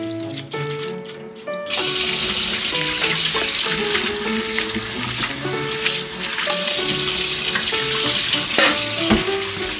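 Tap water running and splashing as soaked kelp strips are rinsed by hand in a steel bowl, starting suddenly about two seconds in. Background music plays throughout.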